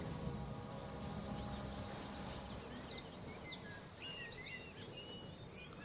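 A small bird chirping: quick series of high chirps starting about a second and a half in, a few lower notes, then a fast trill near the end, over a low steady rumble.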